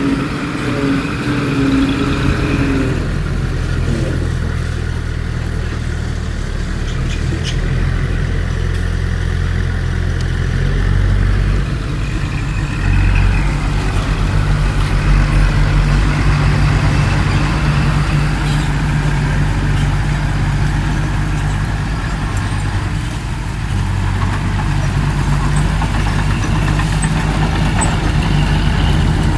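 Heavy diesel engine of earthmoving machinery working, its speed stepping up and down several times under load.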